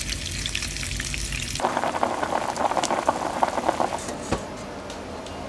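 Pork belly sizzling and crackling in hot oil in a frying pan. About one and a half seconds in the crackle turns denser and louder, then fades to a steadier, quieter hiss, with a single knock a little after four seconds.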